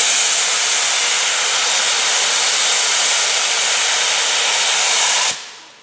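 Small steam locomotive venting steam: a loud, steady hiss that cuts off suddenly a little over five seconds in.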